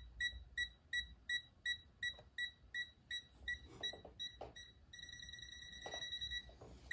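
Themisto TH-M98 digital multimeter beeping in its non-contact voltage (NCV) mode: short high beeps, about three a second, that turn into one steady beep for about a second and a half near the end. A few light handling knocks.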